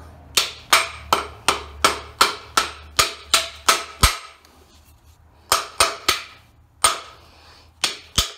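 Ball-peen hammer striking a Jeep Cherokee drive shaft's U-joint held in a bench vise, driving a bearing cap out of the yoke: ringing metal-on-metal blows. About ten quick blows come at roughly three a second, then after a short pause about six more, spaced out.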